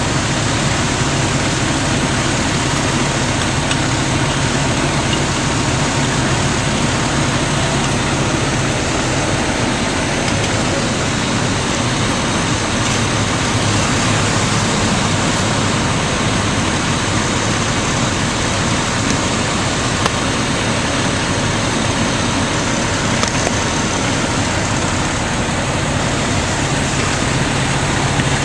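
Fire engine's engine running steadily at a constant speed, a loud, even drone with a low hum.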